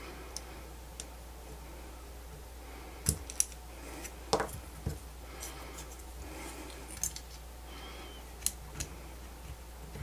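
Small precision screwdriver driving a small screw into a 3D-printed plastic part, with the part being handled: scattered clicks and light scraping, the sharpest few clicks between about three and five seconds in.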